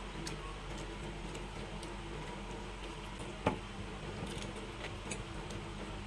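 Eating sounds: faint scattered small clicks and one sharp click about three and a half seconds in, over a steady low hum.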